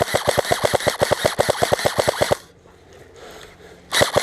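Airsoft rifle firing on full auto, a rapid string of snapping shots at about a dozen a second. A long burst stops about two seconds in, and a short second burst comes near the end.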